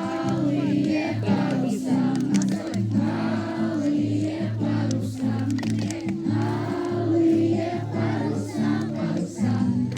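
A song with a group of voices singing along to instrumental music.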